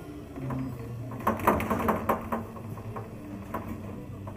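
Clatter: a quick run of sharp clicks and knocks lasting about a second, starting a little over a second in, over a steady low hum.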